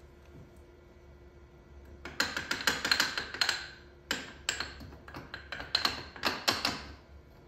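Rapid clusters of sharp taps and knocks from a coffee dosing cup being tapped against a stainless portafilter. The taps start about two seconds in and stop near the end.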